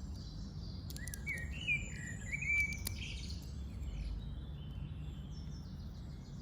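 Small birds chirping: runs of short, high, stepped chirps starting about a second in and returning in the second half, over a low steady hum, with a few faint clicks early on.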